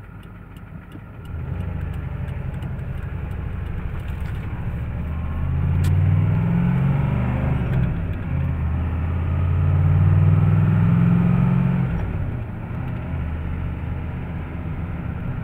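Ford 7.3 L IDI turbo-diesel V8 pulling hard under acceleration, heard from inside the cab. The engine note steps up about a second in and rises twice, dipping at a gear change about eight seconds in, then settles to a steadier run near the end. The engine is a used motor that the owner believes is worn out.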